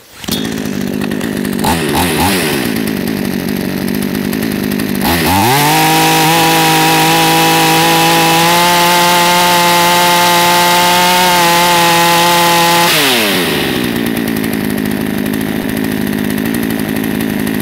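Fuxtec FX-KS262 62 cc two-stroke chainsaw engine idling, then revved to full throttle off load for about eight seconds, its pitch stepping up a little partway through, before dropping back to idle. The carburettor's top-speed mixture is being set, which the owner finds a little lean.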